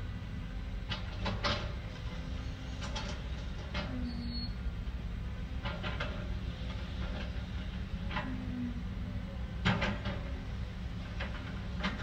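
Heavy earthmoving machinery at work: a steady low engine rumble with irregular knocks and clanks of rock against steel, the loudest about ten seconds in.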